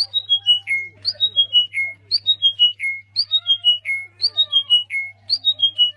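A bird's whistled call: a phrase of high notes stepping down in pitch and ending on a longer, lower note, repeated very evenly about once a second, six times, with softer chirps beneath and a steady low hum.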